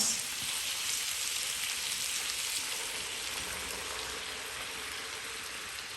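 Browned chicken pieces with garlic and onions frying in a pan, a steady sizzle that eases slightly toward the end.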